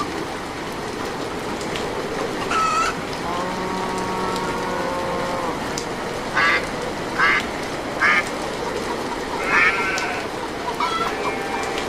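Short animal calls over a steady hissing background: a drawn-out call, then three short calls about a second apart, then a longer one.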